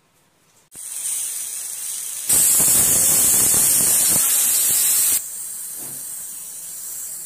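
Aluminium pressure cooker whistling: steam hisses out under the weight valve, starting about a second in, loud for about three seconds in the middle, then hissing more softly. One whistle, the signal that the pressure is up and the eggs inside are cooked.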